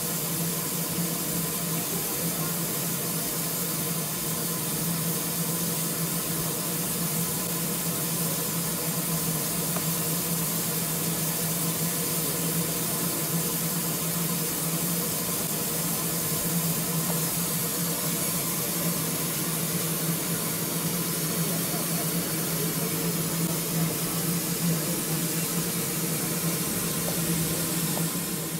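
Steam locomotive standing in steam: a steady hiss of escaping steam over a steady low hum.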